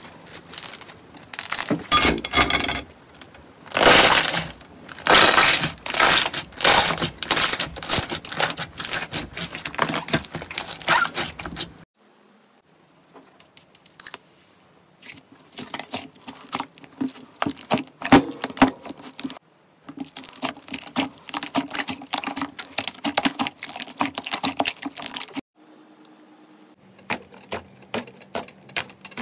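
Slime being squeezed and poked by hand, making dense runs of sticky crackles and pops. Several short clips follow one another, with abrupt cuts about twelve, nineteen and twenty-five seconds in.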